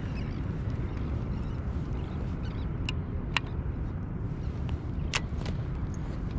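Steady low rumble, with a handful of sharp clicks from a fishing rod and baitcasting reel being handled, about three seconds in and again around five to six seconds in.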